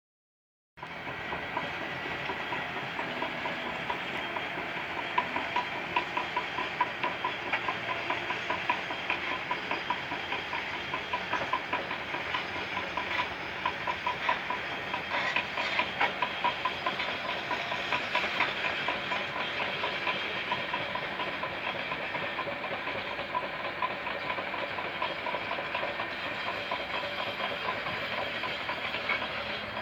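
Bulldozer working: its engine runs steadily under a dense clatter of steel crawler tracks, with many small clanks and a fast-pulsing high squeal. The sound starts abruptly just under a second in.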